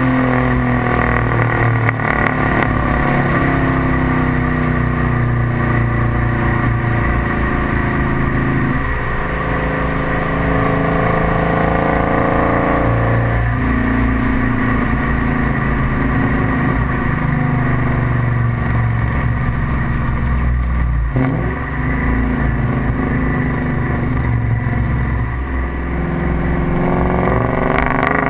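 Ford Mustang Mach 1's 4.6-litre V8 through SLP long-tube headers, a BBK catted H-pipe and an SLP Loudmouth II cat-back, heard right at the rear bumper. The car is under way with the exhaust note climbing in pitch and dropping at upshifts about nine and thirteen seconds in, then holding a steadier drone with another dip a little past twenty seconds.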